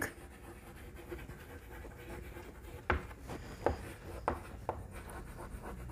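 Chalk writing on a chalkboard: faint scratching strokes, with several short sharp taps of the chalk against the board in the second half.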